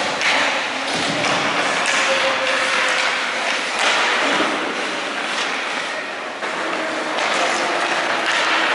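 Ice hockey play on the rink: a steady scrape and hiss of skates on the ice, broken by scattered knocks and thuds of sticks, puck and boards.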